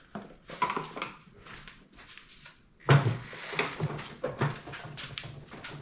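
Hand-handling clatter of plastic headlight parts as a connector clip is worked: scattered clicks and rattles, with a sharper knock about three seconds in.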